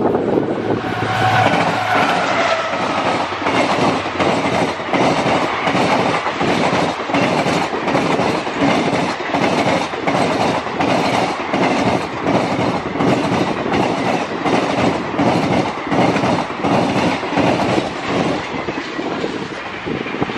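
A WDP4D diesel locomotive goes by at speed, with a tone falling in pitch in the first couple of seconds, followed by its passenger coaches. The coach wheels make a steady clickety-clack over the rail joints, a little under two knocks a second.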